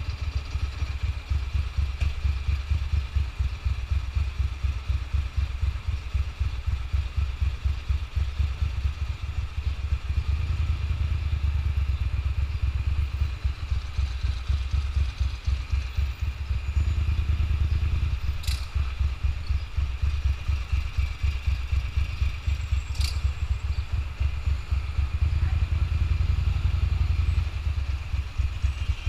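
Motorcycle engine running at low revs in slow stop-and-go traffic, a steady pulsing throb. Two brief sharp clicks come in the second half.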